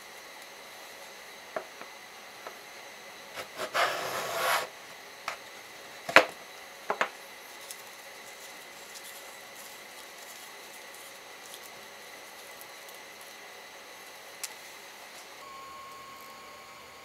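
Quiet hand-tool handling on a wooden workpiece: a short scraping rub of wood about four seconds in, then a sharp knock as a small metal block plane is set down on the bench, followed by two lighter taps. A faint steady hum comes in near the end.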